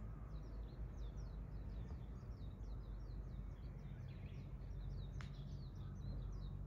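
A small bird twittering in a quick run of short, high chirps, about four a second, over a steady low outdoor rumble.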